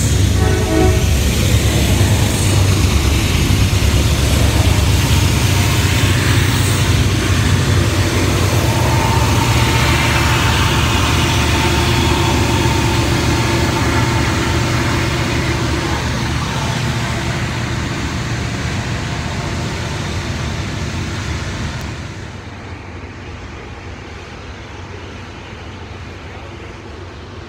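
Slow freight train passing close beneath: the low rumble of diesel locomotives, with the tail of a horn blast ending about a second in, then the cars rolling by with a thin steady squeal for a few seconds; the train is slowing for a red signal. About 22 s in the sound drops to a quieter rolling of covered hopper cars heard from farther off.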